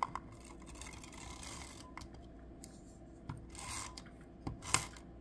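Dot liner adhesive runner drawn across cardstock in short rasping strokes with small clicks, the loudest near the end, as its adhesive roll runs out.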